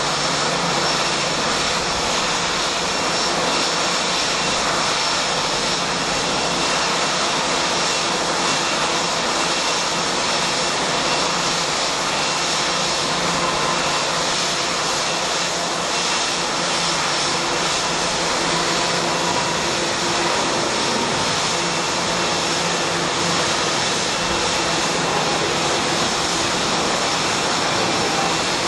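Boeing 787's jet engines idling as the airliner taxis slowly in: a steady rushing hiss with faint, steady high whistling tones.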